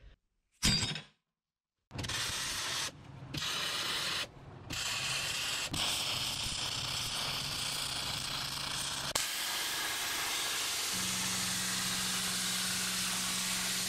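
Arc welding on mild steel plate: the steady crackling sizzle of the welding arc, stopping briefly a couple of times between beads. A low steady hum joins in during the last few seconds.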